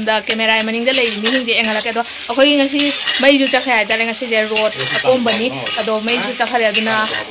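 A metal ladle scraping and clinking in a cooking pot as food is stirred and sizzles, under a woman talking throughout.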